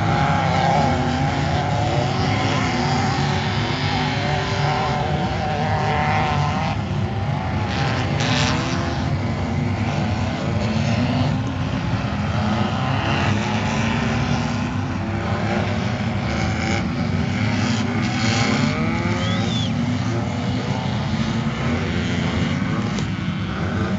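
Engines of off-road race vehicles revving and easing off as they race, with several rising and falling engine notes overlapping over a steady low rumble.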